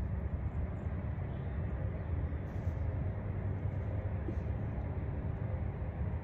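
Steady low outdoor rumble with no distinct events in it.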